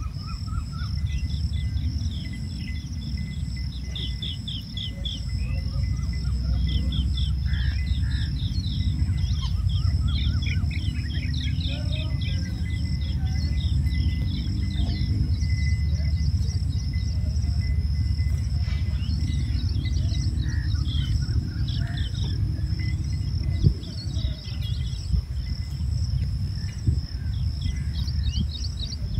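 Many birds chirping and twittering over a steady high insect buzz, with a continuous low rumble underneath and a single knock about three-quarters of the way through.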